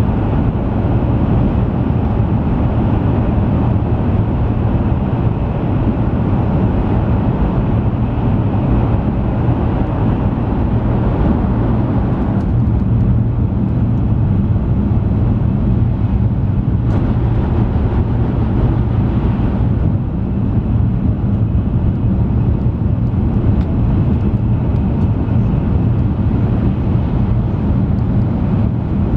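Steady running noise of an N700-series (7000-series) Shinkansen heard inside the passenger cabin at speed: a deep, even rumble with a hiss above it. The hiss eases a little about twelve seconds in.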